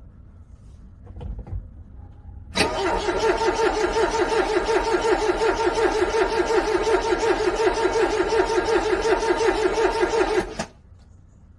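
Car engine cranking on its starter in the cold, a steady pulsing churn for about eight seconds that stops abruptly without the engine catching. A low thump comes shortly before the cranking.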